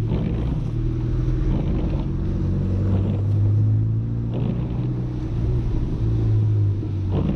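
Audi A3 1.8T 20-valve turbocharged four-cylinder engine running at low, steady revs while the car drives, with road noise inside the cabin.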